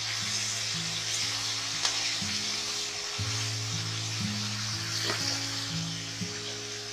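Yogurt-marinated chicken sizzling as it is spooned into hot oil in an aluminium kadai, with a few faint clicks. Soft background music with low held notes plays underneath.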